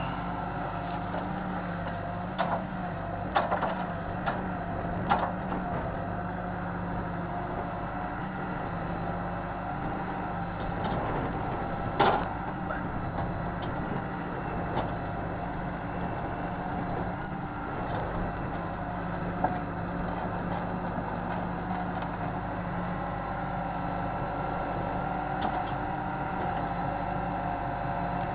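John Deere 160C excavator's diesel engine running steadily, with scattered sharp metallic clanks, the loudest about twelve seconds in, as it handles attachments.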